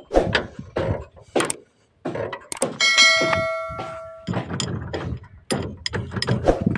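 A series of short knocks and clanks, with a struck metal piece ringing out like a bell about three seconds in for a second and a half.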